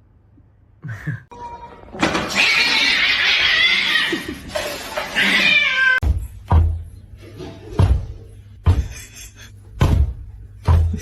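A cat making a loud, harsh call for about three seconds, followed by a run of short dull thumps about once a second.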